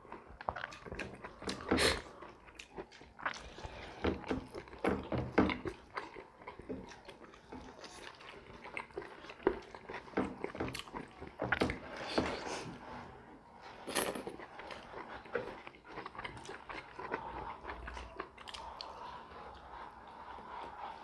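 Close-miked eating: irregular wet chewing and lip-smacking, with scattered clicks and squishes, as rice and fish curry are eaten by hand.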